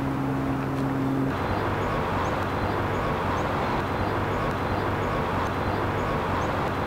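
Outdoor street ambience: a steady low hum stops about a second in, then an even background of outdoor noise with a bird chirping every second or so.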